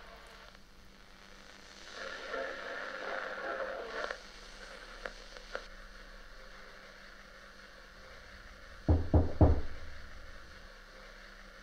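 Three quick, heavy knocks on a door, about nine seconds in. Earlier there is a short stretch of muffled noise and two small clicks.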